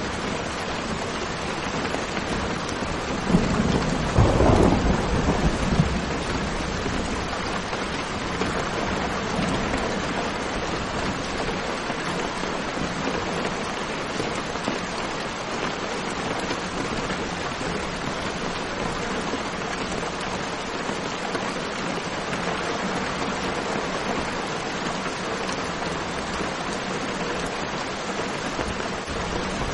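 Steady rain falling, with one clap of thunder rumbling for a couple of seconds about three seconds in.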